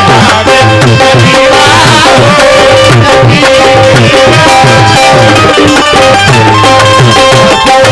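Qawwali accompaniment: a tabla beating a steady rhythm under sustained harmonium chords.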